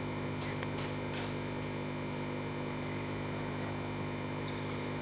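Steady low hum made of several constant tones, with faint background ambience and no distinct events.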